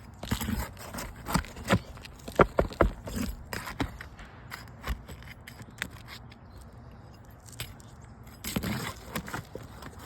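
Irregular metal clicks and scrapes of a tool prying nails out from under a three-tab asphalt shingle, in clusters with a quieter stretch in the middle.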